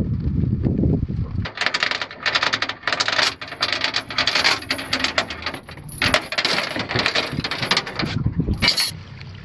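Steel anchor chain clinking and rattling in uneven bursts as it is hauled up hand over hand over the bow of an aluminium boat. Before the chain starts, there is a low rumble for about the first second and a half.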